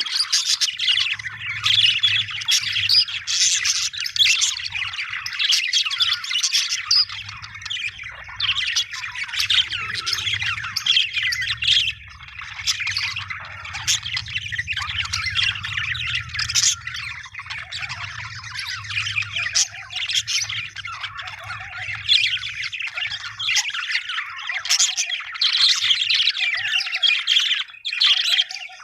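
Budgerigars chirping and squawking in dense, overlapping chatter. A faint low hum runs underneath from about a second in and stops about 23 seconds in.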